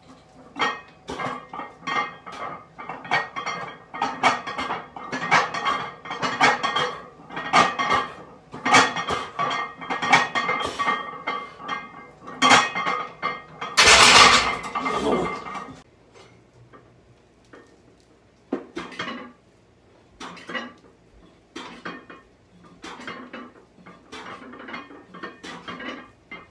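Weight plates clinking and rattling on a loaded barbell through a set of bench press reps. There is a loud metal clang about halfway through as the bar goes back into the rack, then fainter, sparser clinks.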